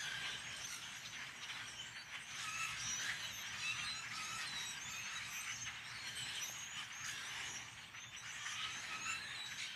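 A large flock of birds calling from the pine treetops: a steady chorus of many short, overlapping chirps and whistles.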